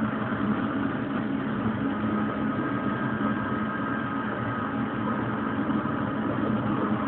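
Electric train running steadily along the track, heard from the front cab: an even rumble of motors and wheels on the rails with a low hum, and a faint high whine from about two seconds in to about five seconds.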